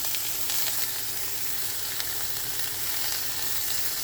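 Broccoli and asparagus frying in hot vegetable oil in a large pan: a steady sizzle, with a few faint clicks.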